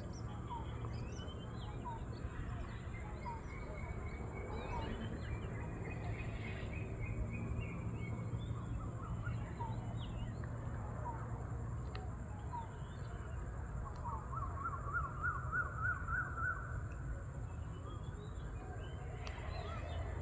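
Several birds calling with scattered short chirps, and a rapid trilled call about two-thirds of the way through, over a steady high-pitched tone.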